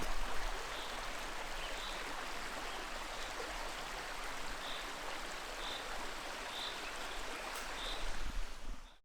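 Mountain creek flowing: a steady rush of running water that cuts off suddenly near the end.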